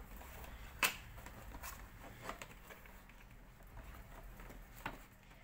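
Cardboard toy box being opened by hand: a few faint, sharp clicks and rustles as the end flap is pried loose, the clearest about a second in and near the end.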